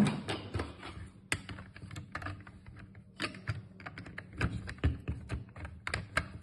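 Irregular clicks and clacks of plastic and metal parts being handled and fitted together while reassembling a coffee machine's brew group.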